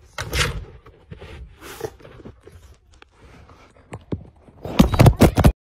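A dog sniffing and licking at a phone lying under a door, its nose right against the microphone: a few short sniffs at first, then a quick run of loud sniffs and licks near the end that stops abruptly.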